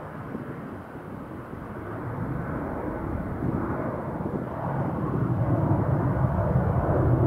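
Jet engine noise from a Boeing 737's CFM56 turbofans as the airliner passes, growing steadily louder and loudest near the end.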